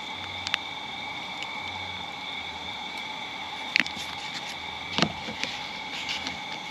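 Light handling noises as a taco is topped with sour cream and folded by hand on a plate: a few short clicks and taps, the sharpest about 4 and 5 seconds in, over a steady high-pitched hum.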